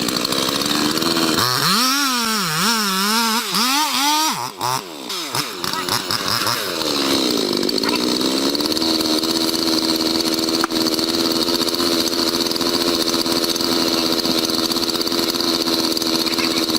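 Chainsaw running at high speed. Its pitch wavers rapidly up and down for a few seconds early on, sags briefly near the middle, then holds a steady high whine.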